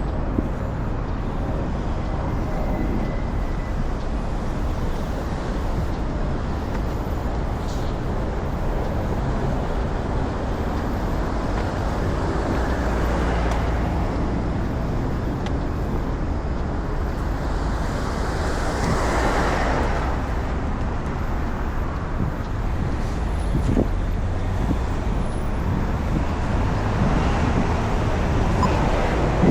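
Road traffic: a steady low rumble of passing cars and buses, with one vehicle swelling up and passing close about two-thirds of the way through.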